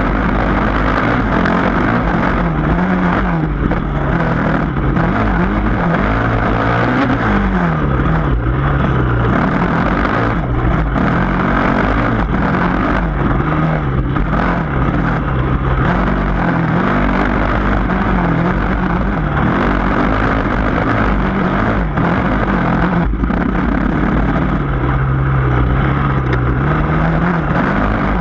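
Yamaha dirt bike engine running hard on a trail climb, its pitch rising and falling again and again as the rider works the throttle and gears.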